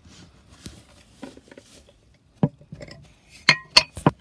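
Hens pecking at their feeder and straw bedding: a soft rustle, then a few sharp taps and clinks in the second half, the loudest two close together near the end.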